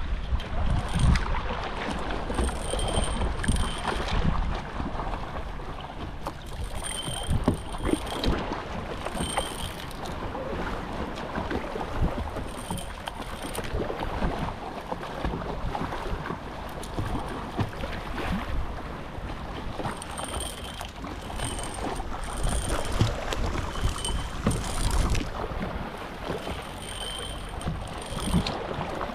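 Kayak paddling in the sea: the paddle splashes and water sloshes against the boat, with wind buffeting the microphone. Short high chirps come and go every few seconds.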